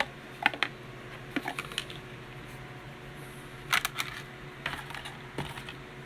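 Light clicks and rustles of small plastic and cardboard toy packaging being handled, in short scattered clusters, as the box is searched for the figure's card.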